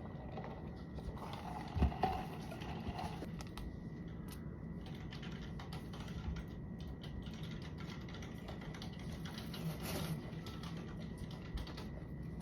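Typing on a computer keyboard: irregular runs of key clicks, with a louder knock about two seconds in.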